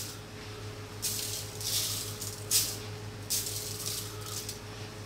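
Salt grains sprinkled by hand onto a whole fish and the aluminium foil under it, pattering in about five short hissing showers.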